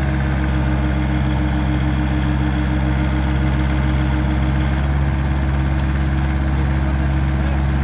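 Excavator's diesel engine running steadily at raised revs while its bucket lifts a concrete slab.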